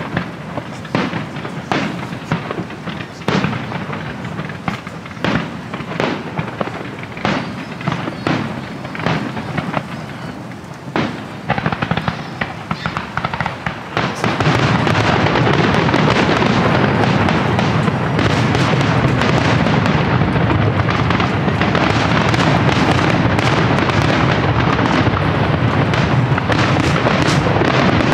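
Aerial fireworks shells bursting, first as a quick series of separate bangs, then from about halfway through as a dense, unbroken barrage that is louder and steady: the finale of the display.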